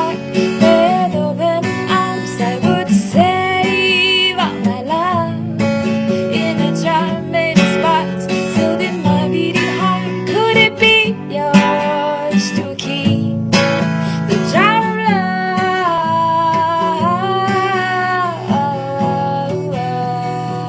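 Background music: a song with strummed acoustic guitar and a melody line over it.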